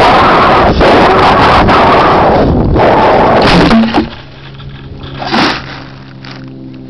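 Wind rushing loudly over the on-board camera of a GWS Slow Stick RC plane in flight, broken by knocks and scrapes. About four seconds in, the rush cuts off suddenly. A short loud scrape follows a second later, then quieter steady low tones.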